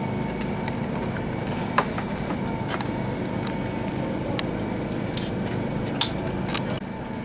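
A steady machine hum with a few sharp clicks or taps over it, the loudest about two seconds in and another about six seconds in.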